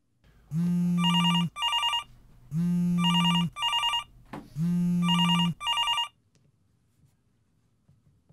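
A mobile phone ringing three times, about two seconds apart. Each ring is a low buzz followed by a quick pulsed run of high chiming tones. The ringing stops about six seconds in.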